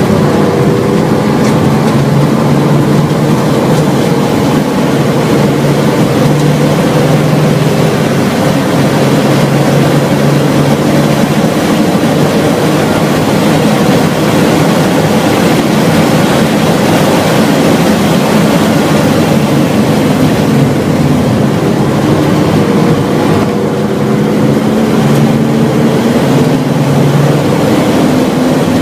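Stock BMW E36 M3's inline-six engine running hard at high revs during a track lap, heard from inside the cabin. Its pitch holds and shifts as the car accelerates, with a brief dip in level about 23 seconds in.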